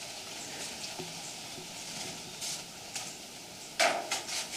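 Faint, steady hiss like distant splashing water, sounding like someone bathing, with a few soft rustles and a louder rustle near the end.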